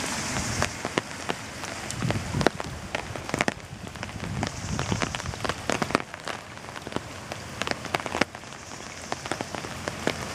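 Heavy rain falling on floodwater: a steady hiss of rain on the water's surface, with many sharp, close drop hits.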